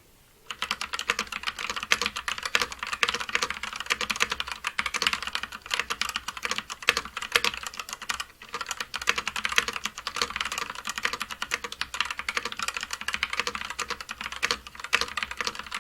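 Rapid, continuous typing on a MageGee mechanical keyboard whose switches have been lubed from the top and fitted with new keycaps: a dense clatter of key clicks, with a brief pause about halfway through. It is a sound test of the freshly modded board.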